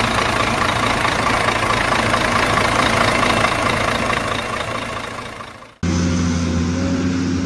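Truck engine running steadily, fading out about five and a half seconds in. After a sudden change, a different steady low hum with a few light clicks starts.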